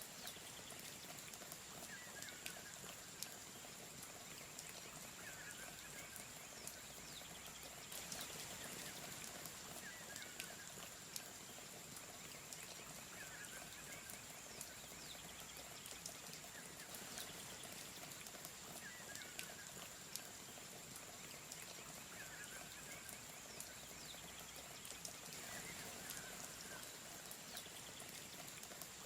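Quiet forest ambience: a steady high-pitched insect drone over a faint, even hiss of flowing water, with a short animal call repeating every few seconds.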